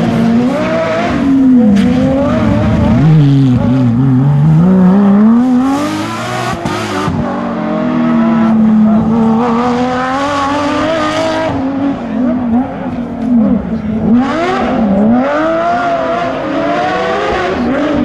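Porsche 997 GT3 rally car's flat-six engine at full throttle, loud, its pitch climbing hard and then dropping sharply again and again as it shifts gears and lifts for corners.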